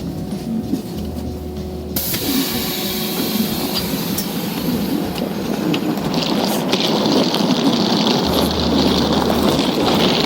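Road vehicle running with steady rumble and road noise; about two seconds in the sound turns abruptly brighter and louder with much more hiss.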